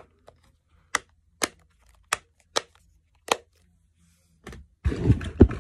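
Silicone bubbles of a simple dimple fidget being pressed, giving about seven sharp clicks at uneven gaps of half a second to a second. Near the end a louder rustling handling noise takes over.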